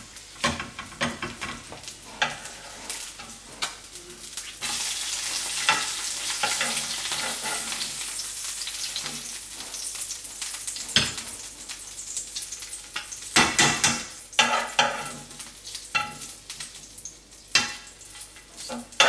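Eggs sizzling in a nonstick frying pan while a metal spoon clinks and scrapes against the pan. The sizzle gets louder about five seconds in, and the spoon knocks sharply on the pan several times.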